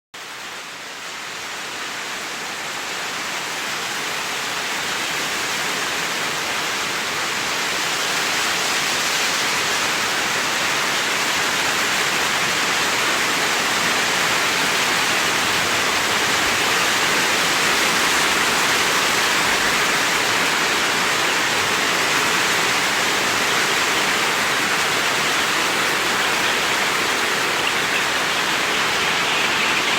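Steady rushing noise that swells over the first several seconds and then holds.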